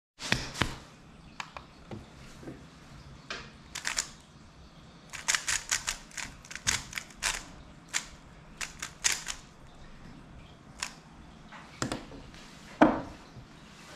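Plastic MoYu WeiLong WRM 2021 speedcube being turned, short runs of quick clicking clacks as its layers snap round. The cube is set down on the table with a single louder knock near the end.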